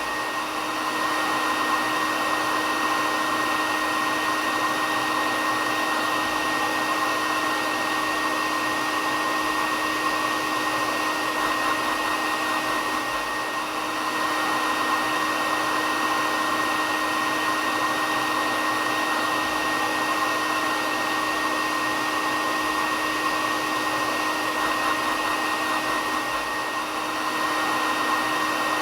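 Hair dryer running steadily: an even rush of blown air with a low hum and a high whine held throughout, dipping slightly in loudness about every 13 seconds.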